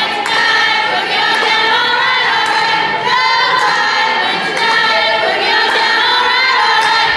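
Crowd of school students chanting in unison, many voices carried on sung, pitched notes.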